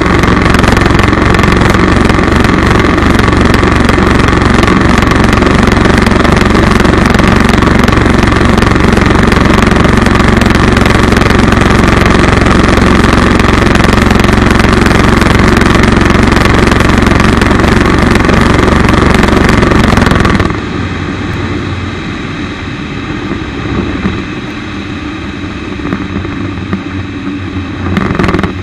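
The Rotax 912 UL four-cylinder boxer engine of a Chinook Plus 2 ultralight runs loud and steady in flight, then cuts out abruptly about twenty seconds in. What remains is quieter wind and airflow noise as the aircraft glides without power, with a brief louder swell near the end. The engine has quit after the left carburettor came off its rubber intake flange.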